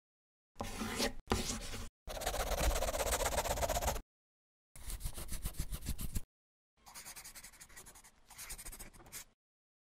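Teeth grinding: short rasping, scraping bursts separated by clean silences, the later bursts fainter and with a quick rhythmic grating.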